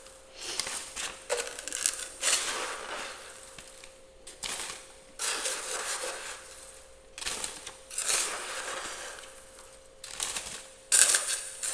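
Frost and ice being scraped off the inside of a freezer in about six rough, crunching scraping strokes, each a half-second to two seconds long with short pauses between. A faint steady hum runs underneath.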